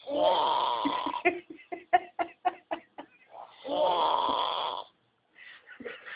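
A man snoring loudly, with two long snores about three seconds apart. The first is followed by a quick run of short sputters, about six a second.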